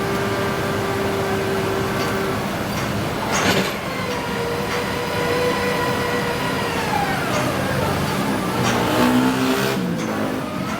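Sany SR150C hydraulic rotary piling rig running as it drills, its engine and hydraulics making a steady machine tone. A sharp clank comes about three and a half seconds in, and the machine's pitch slides down partway through.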